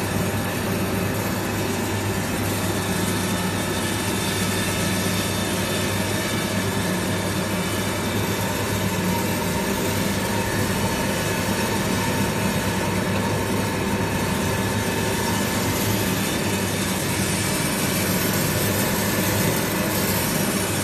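Industrial roller mill for grinding coffee beans running, a steady machine hum with a continuous mechanical whirr that holds level throughout.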